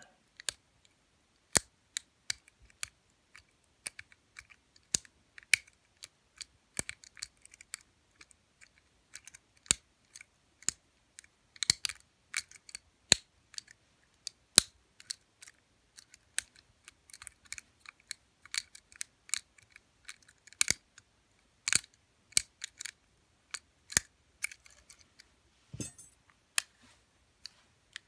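Small, sharp metallic clicks and ticks at irregular intervals from a pick wire lifting the levers of an Abus 425/45 four-lever padlock, held under moderate tension by a turning tool. Near the end, a quick rattle of several clicks close together.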